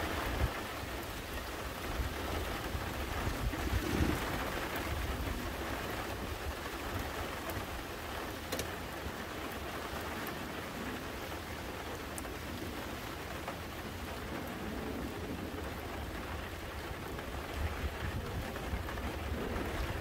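Steady rain falling on grass and trees: an even hiss with a few faint drop ticks.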